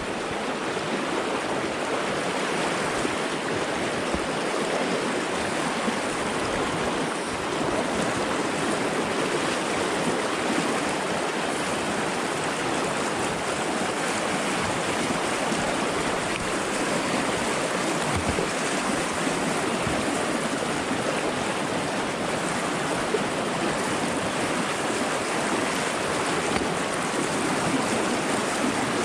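Fast-flowing mountain river, the snowmelt-swollen Stillwater Fork of the Bear River, rushing steadily.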